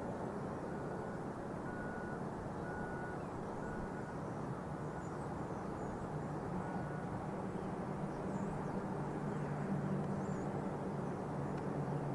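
Low steady engine drone of a ship moving through the harbor, with a row of short evenly spaced high beeps in the first few seconds and one more about halfway, and faint bird chirps.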